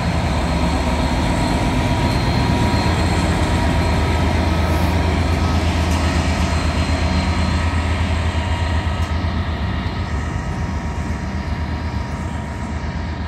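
GB Railfreight Class 66 diesel-electric locomotive passing at speed, its EMD two-stroke V12 diesel running with a steady low drone, with a container freight train behind it. About nine seconds in, the sound eases a little as the locomotive draws away and the container wagons roll past.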